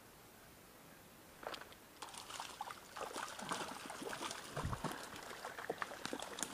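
Water splashing and trickling from a hooked trout thrashing as it is reeled in. It starts suddenly about a second and a half in, after near quiet, and two dull knocks come in the second half.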